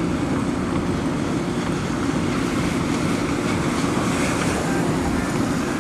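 Steady rushing wind of a severe thunderstorm, buffeting the microphone.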